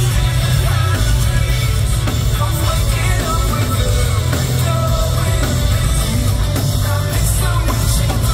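Rock band playing live and loud, with sung vocals over electric guitars and drums and a heavy bass that dominates the mix.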